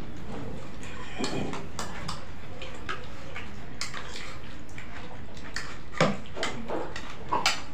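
Spoons tapping and scraping small bowls of papri chaat as three people eat quickly, with scattered short clicks and crunches over a steady background hiss; the clicks come more often near the end.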